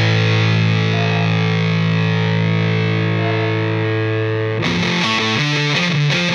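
Background rock music with distorted electric guitar: a held chord, changing to a rhythmic riff of shifting notes about four and a half seconds in.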